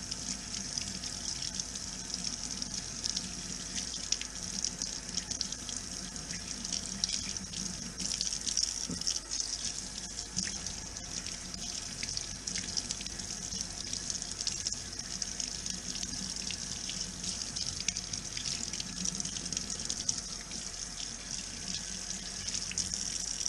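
Tap water running steadily from a kitchen faucet into a stainless steel sink, splashing over hands rinsing a piece of raw meat under the stream.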